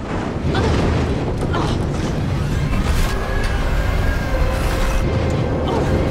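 TV action-scene sound effects: a heavy low rumble with several sharp crashing hits, under dramatic score music.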